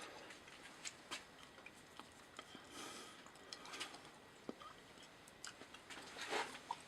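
Faint, scattered metallic clicks and brief soft scraping as the milling machine's table lock is tightened.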